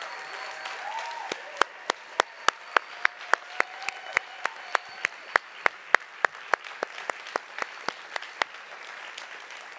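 Audience applauding, with a series of loud, sharp hand claps close to a podium microphone, about three a second, starting about a second in and stopping near the end.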